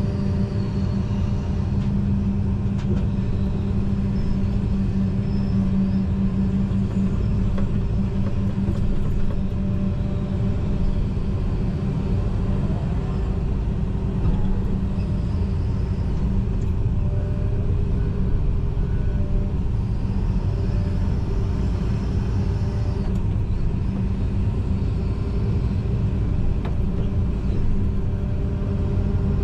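John Deere 245G excavator's diesel engine running steadily while it works, heard from inside the cab, with a low droning hum that is strongest in the first several seconds.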